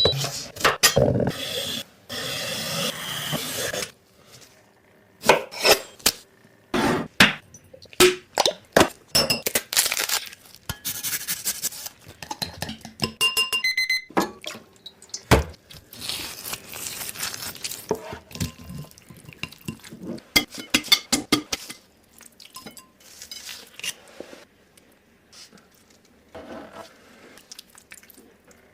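Kitchen work: dishes, pans and utensils clinking and knocking, with short stretches of hissing noise between them. A brief run of high beeps sounds about halfway through.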